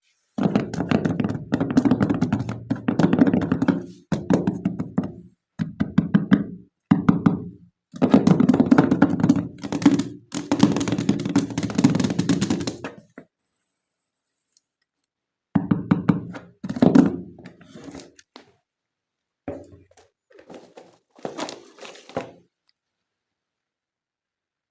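Toy animal figures being unboxed and handled: dense runs of knocking and rattling, a pause of a couple of seconds about halfway through, then sparser knocks.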